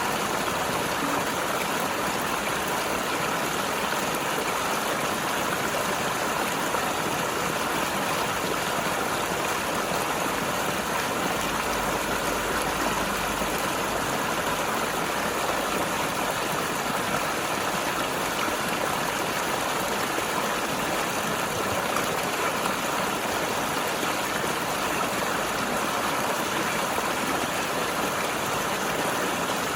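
Mountain river flowing and tumbling over rocks: a steady, unbroken rush of water.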